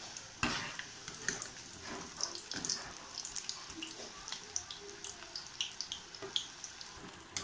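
Batter-coated cauliflower pieces deep-frying in hot oil in a metal kadai: a steady sizzling hiss with many small crackles and pops. A sharper knock about half a second in, as the wire skimmer moves in the pan.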